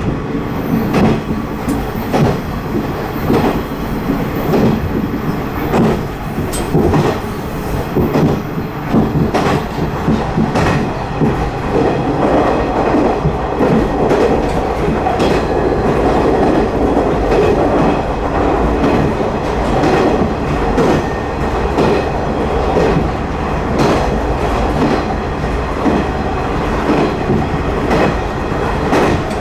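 Passenger train running along the track, heard from inside the car: a steady rumble of wheels on rail with frequent clicks and knocks from the rail joints, which come thickest in the first third and then thin out.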